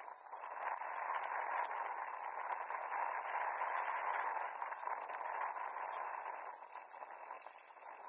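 Steady rushing noise with faint crackles, louder through the middle and easing near the end: outdoor background noise at a football pitch.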